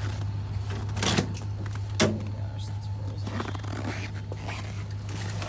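The door latch of a 1966 Plymouth Valiant clicks open sharply about two seconds in, among smaller clicks and scrapes of the door being handled, over a steady low hum.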